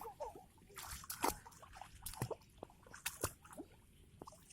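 Light splashing and sloshing of shallow rice-paddy water as small children play in it, in scattered short splashes and drips.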